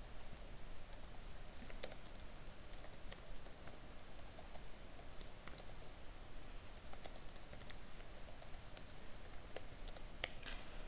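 Typing on a computer keyboard: scattered, irregular keystrokes, with a quick run of several near the end.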